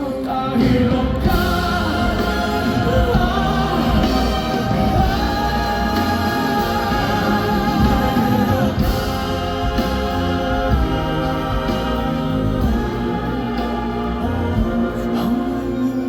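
Live Cantopop performance: a male singer holding long wordless notes over a full band, with steady drums and bass underneath.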